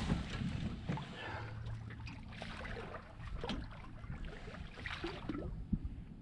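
Water splashing and sloshing at the side of a boat as a hooked striped bass is held in the water to revive it and then released. Scattered small splashes and knocks come over a low rumble of wind.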